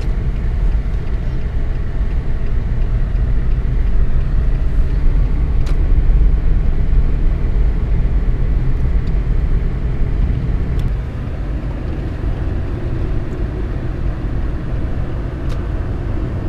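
Steady low rumble of a car driving on snow-covered roads, heard from inside the cabin, with tyre and road noise; it eases slightly about two-thirds of the way through, with a few faint clicks.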